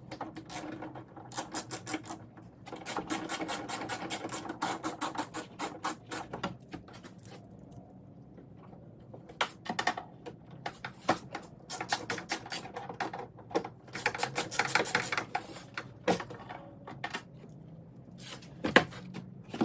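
Hand ratchet on a long extension clicking in quick bursts while two door-handle bolts are run in, with a sharper knock near the end.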